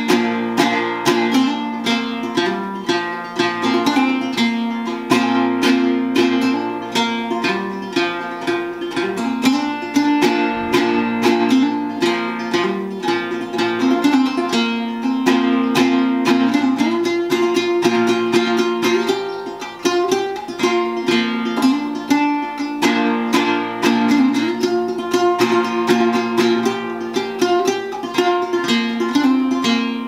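Handmade flush-fret banjo with a copper tea kettle for its pot, played acoustically with no amplification and with the kettle lid off: a quick, continuous run of picked notes over a low note that rings steadily beneath them.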